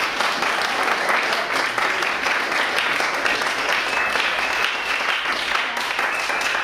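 Audience applauding, a dense steady clapping, with a thin high whistle held for a couple of seconds in the second half.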